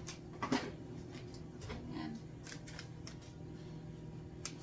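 Kitchen shears snipping open a seasoning packet: a few short, crisp cuts and crinkles, the loudest about half a second in.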